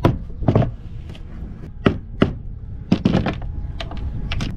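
Mallet striking a pry bar wedged under a rotten wooden windshield post: sharp knocks, two or three in the first second, then scattered knocks and tool clatter, with a quick run of them about three seconds in.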